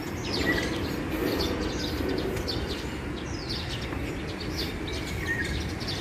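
A flock of Eurasian tree sparrows chirping: many short, quick chirps overlapping all through, over steady low background noise.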